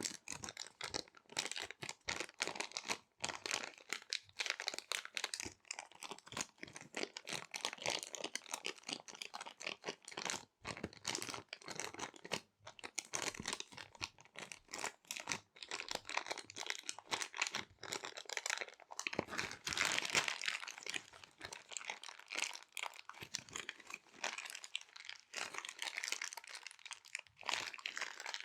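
Small resealable plastic zip bags being crinkled and crumpled in the hands: a continuous, irregular crackling with many small sharp crinkles and brief pauses.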